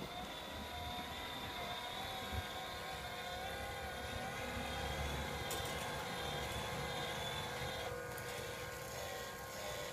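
Small electric motor of a drilling-rig model running with a whine that wavers slightly in pitch, fading about eight seconds in.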